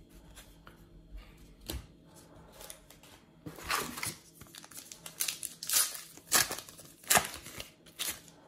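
Panini Adrenalyn XL trading card pack wrapper crinkling and tearing as a fresh pack is taken from the box and ripped open, a run of sharp rustles starting about three and a half seconds in. Before that, a few soft clicks of cards being handled.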